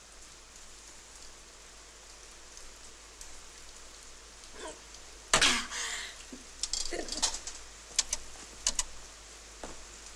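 Faint hiss, then about halfway a sudden loud sound followed by several short sharp clicks and knocks, irregularly spaced.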